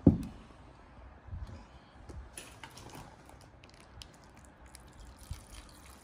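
Tom yum broth poured from a plastic bag into a bowl of noodles, a soft trickle and drip of liquid that starts partway through. A single dull thump comes right at the start.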